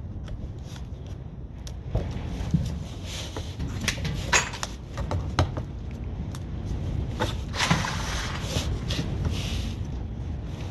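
Hand tools working on a truck camper's roof vent: irregular scrapes, clicks and knocks, busiest through the middle, over a steady low rumble.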